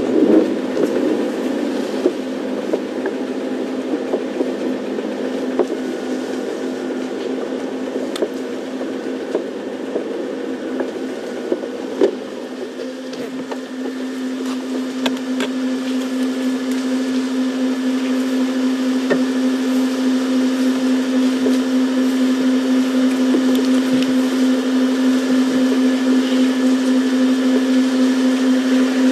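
Safari game-drive vehicle's engine running at low revs as the vehicle creeps forward. It is a steady hum that grows steadier and louder from about halfway through.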